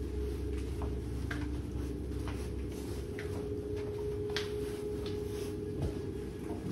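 Footsteps on a hard floor: faint, irregular ticks about a second apart over a steady low hum.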